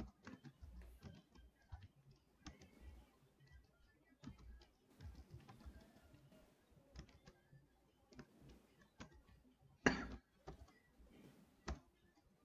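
Faint typing on a computer keyboard: irregular single key clicks, with one louder knock about ten seconds in.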